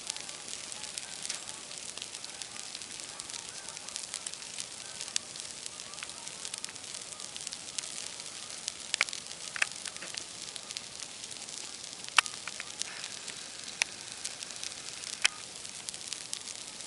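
Open fire burning with a steady crackling hiss and scattered sharp pops, a few louder pops coming in the second half.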